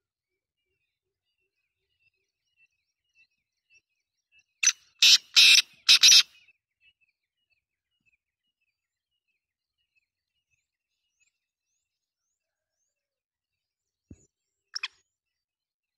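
Black francolin calling: a loud run of four quick notes about five seconds in, then a short single call near the end, over faint repeated chirps in the background.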